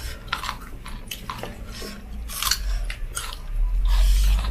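Someone chewing and biting into food close to the microphone, with scattered short crunchy clicks. A low rumble comes up near the end.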